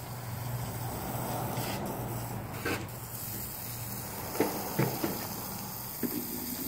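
Steady low hum and outdoor background noise, with a few short soft knocks from the camera and sunglasses being handled.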